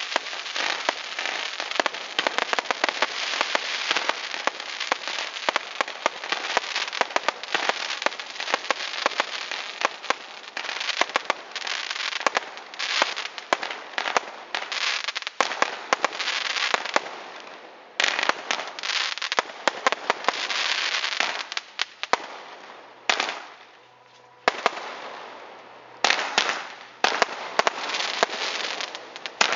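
Fireworks crackling: a dense, rapid run of sharp pops and crackles that thins out after about 18 seconds into separate crackling bursts with short pauses between them.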